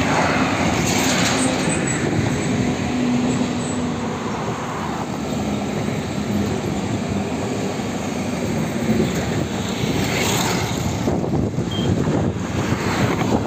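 Heavy highway traffic of trucks and buses: a steady rush of engines and tyres, with a low engine hum in the first few seconds and vehicles swishing past close by about a second in, around ten seconds in and again near the end.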